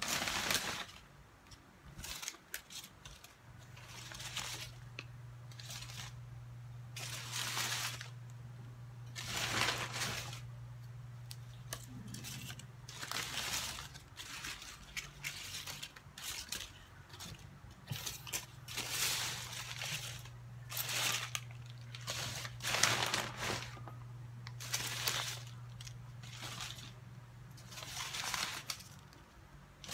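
Paper banknotes rustling and crinkling as they are handled and counted, in a dozen or so short bursts, over a steady low hum.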